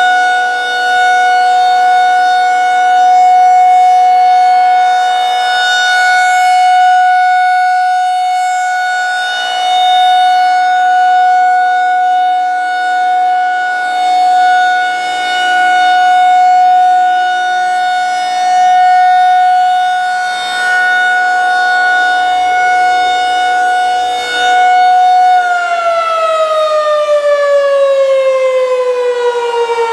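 Federal Signal 2001-SRNB rotating electromechanical outdoor warning siren sounding its steady full-alert tone. The loudness swells and fades as the horn sweeps round. About 25 seconds in, the pitch starts falling steadily as the siren winds down at the end of the alert.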